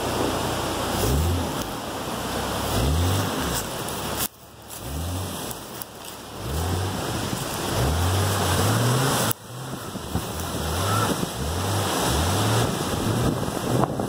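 A Jeep Cherokee XJ's engine revving again and again in short bursts, each rising in pitch, about ten times, as it tries to spin its wheels free of deep mud. A steady rushing hiss runs underneath.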